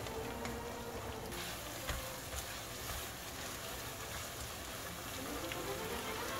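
Food sizzling as it fries in hot oil in a pan: a steady hiss with scattered pops.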